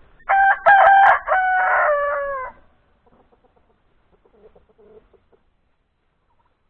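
A rooster crowing once, a loud crow of about two seconds in several joined parts, the last part dropping in pitch. Faint soft clucks follow.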